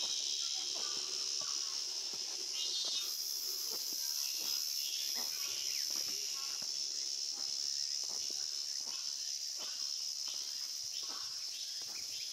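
A steady, loud high-pitched chorus of summer insects fills the forest, with the walker's footsteps on the stone path falling about twice a second.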